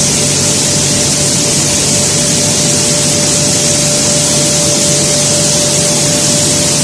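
Maize milling machinery running steadily: a loud, airy hiss with a constant whine and a low hum underneath.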